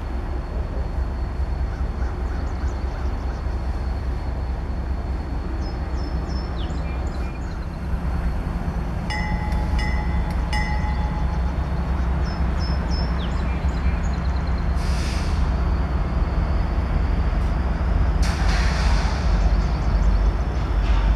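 Freight train hauled by GE Dash 8 locomotives, their 16-cylinder 7FDL-16 diesel engines running with a steady low rumble under the noise of the train. Three short tones sound about halfway through, faint high squeals come and go, and two brief hissing rushes come in the last few seconds.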